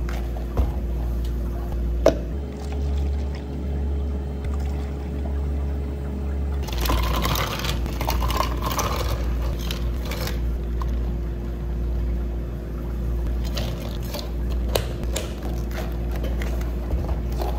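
Iced-drink making: ice cubes rattling from a metal scoop into plastic cups of milk about seven to ten seconds in, with liquid pouring and small clicks of cups being handled, over a steady low hum.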